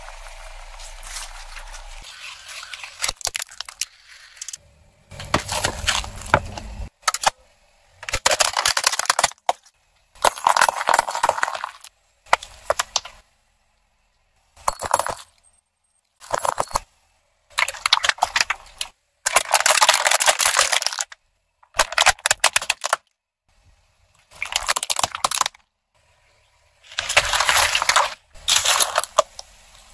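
A car tyre slowly rolling over and crushing one object after another, such as plastic cups of coloured liquid, paint-filled balloons and a watermelon, making cracking and crunching. The sound comes in about a dozen short separate bursts with sudden silences between them.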